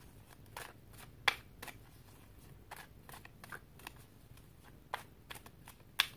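A deck of reading cards being shuffled by hand: irregular soft slaps and flicks of cards, a few a second, with two sharper snaps about a second in and near the end.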